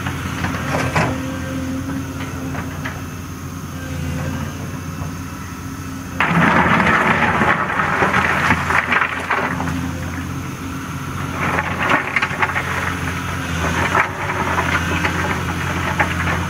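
Volvo excavator's diesel engine running steadily while its bucket rakes and pats down riprap rock on the slope. About six seconds in, loud rattling and grinding of rock scraped by the bucket begins, eases off briefly, then comes again toward the end.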